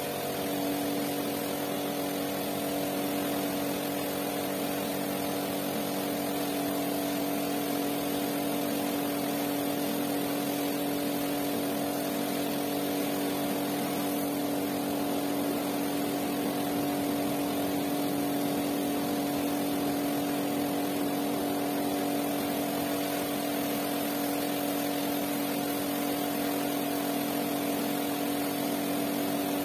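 Pressure washer running steadily: a constant motor-and-pump hum under the hiss of the water jet as soapy foam is rinsed out of a rug.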